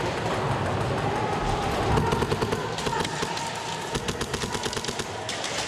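Airsoft guns firing full-auto: a fast string of sharp clacks, many a second, starting about two seconds in over a steady background din.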